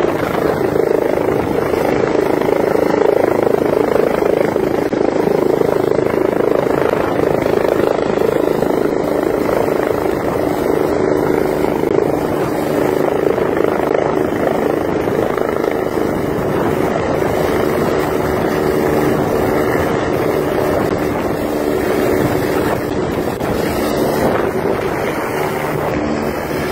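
Twin-turbine Eurocopter EC145 helicopter running loud and close, its rotor and turbines at a steady pitch while it hovers with a skid set on the snow slope. The sound eases a little near the end as it flies off overhead.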